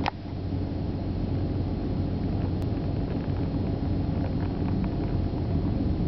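Steady low rumble of wind buffeting the microphone out on open ice, with one sharp click right at the start.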